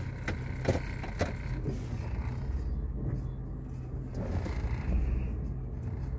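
Steady low engine and road rumble inside a pickup truck's cab while driving, with a few sharp clicks in the first second or so.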